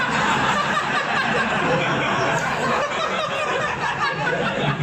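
Audience laughing hard, many voices at once.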